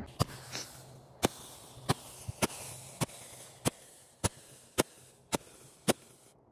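A string of sharp, evenly spaced clicks, roughly two a second, over a faint hiss that fades away.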